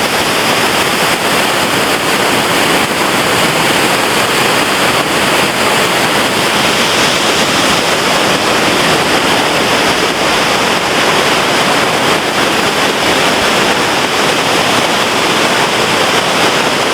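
Waterfall heard close up: a loud, steady rush of falling water.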